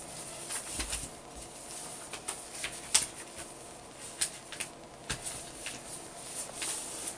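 A sheet of letter-size paper rustling and crinkling as it is folded in half and creased flat by hand, with sharp crackles scattered throughout, the loudest about three seconds in.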